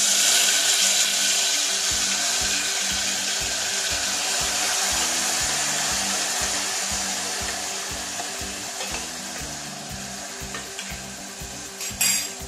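Onion-tomato paste sizzling loudly in hot oil in an open pressure cooker, the sizzle slowly dying down as the paste settles. A short sharp knock near the end.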